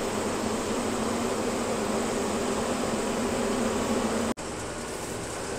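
Lorry's diesel engine and road noise heard inside the cab: a steady drone with a low hum. About four seconds in it breaks off sharply and comes back a little quieter.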